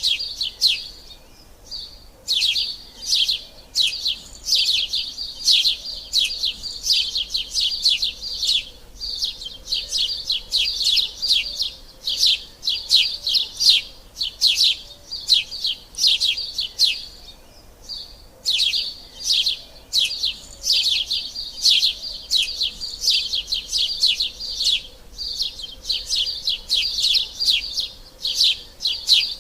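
Sparrows chirping rapidly and continuously: dense runs of short, high chirps, many per second, with brief pauses about a second in and again past the middle.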